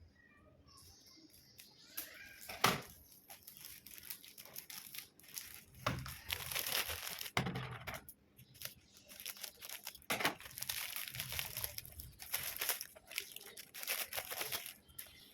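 A book's packaging being torn open and crinkled by hand: stretches of tearing and rustling with scattered clicks, the loudest a sharp snap a little over two seconds in.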